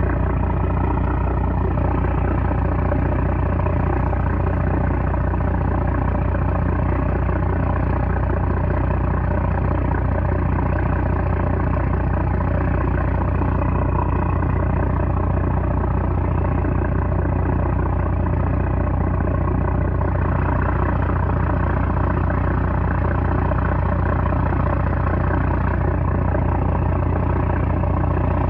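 Small trawler's 330-horsepower diesel engine running steadily, a loud, even low drone with a stack of steady overtones.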